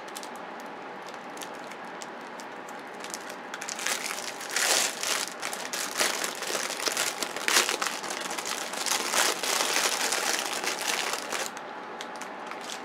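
Plastic packaging crinkling and rustling as a squishy toy is unwrapped. It starts a few seconds in and stops shortly before the end.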